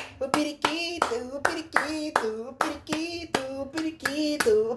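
A voice singing a short, chant-like homemade tune over steady hand clapping at about four claps a second.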